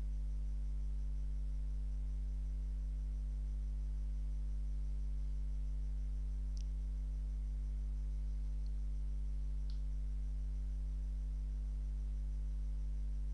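Steady low electrical mains hum with its overtones, and a few faint clicks between about six and ten seconds in.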